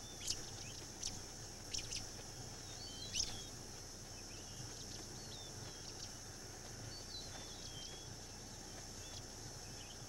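Savanna ambience: a steady high insect drone with scattered short bird chirps, and a few louder sharp calls in the first three seconds or so.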